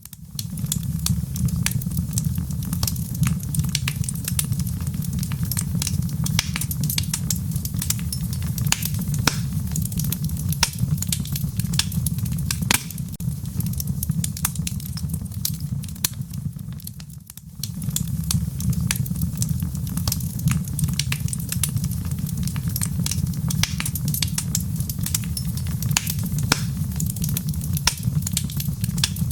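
Wood fire burning in a fireplace, crackling with frequent irregular sharp pops over a steady low rumble. The sound briefly drops away about 17 seconds in.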